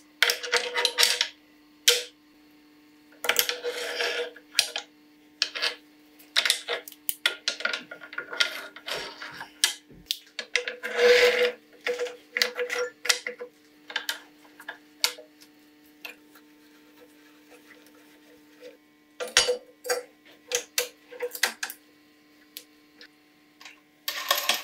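Irregular metallic clanks, knocks and scrapes of a heavy steel machine vise and hold-down clamps being set down, slid and bolted onto the steel table of a homemade milling machine. Near the end, a cluster of quick clicks as the drill chuck is handled to fit a bit.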